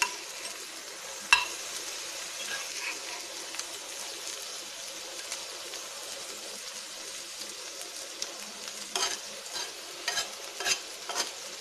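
Sliced boiled eggs, onion and spices sizzling steadily in oil on a dosa tawa, with a metal spatula scraping and tapping the griddle as the pieces are turned. One sharp tap about a second in, and a cluster of scrapes and taps near the end.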